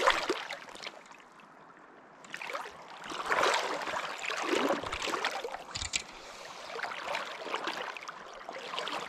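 Shallow river water sloshing and splashing close by, with a few small knocks. It is quieter for about a second near the start, then picks up again.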